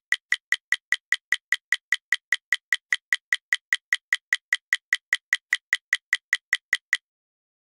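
A fast, even run of identical sharp clicks, about five a second, from a click sound effect laid over the build. The clicks stop about seven seconds in.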